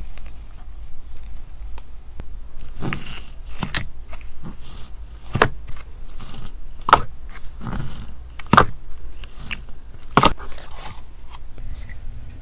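Slime being worked by hand, giving a series of sharp clicking pops, the loudest roughly every second and a half, with softer crackles between them.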